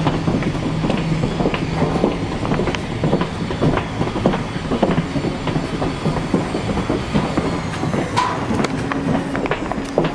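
Footsteps and luggage clatter of boarding passengers walking through a metal-floored jet bridge, a run of irregular knocks over a steady low hum that shifts up in pitch about eight seconds in.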